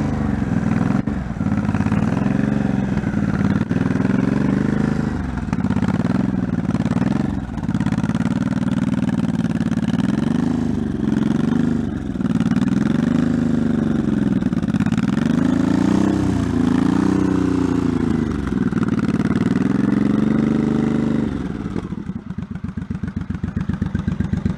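1984 Honda Shadow VT700C's V-twin engine being revved repeatedly at the throttle, its pitch rising and falling with each blip. About 22 seconds in it settles back to an even, pulsing idle.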